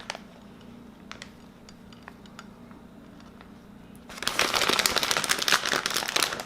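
Plastic packaging crinkling and rustling, most likely the bag of shredded cheese being handled for the Parmesan topping. A few faint clicks come first, then loud crinkling starts about four seconds in.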